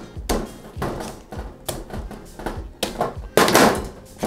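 Plastic bag around a head of cauliflower crinkling and tearing as a knife slits it open, with several sharp knocks of the knife and cauliflower on a plastic cutting board. The longest, loudest crackle of plastic comes about three and a half seconds in.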